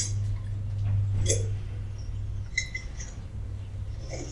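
A few light metallic clinks of steel tire-chain links and the cam tool while the chain is tightened on a truck tire. They fall over a steady low hum.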